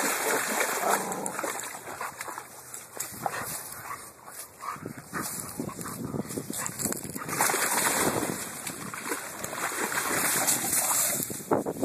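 American Bully dogs splashing and scrambling through shallow creek water, with short dog vocalizations (barks, whines and yips) among the splashing. The splashing swells twice in the second half.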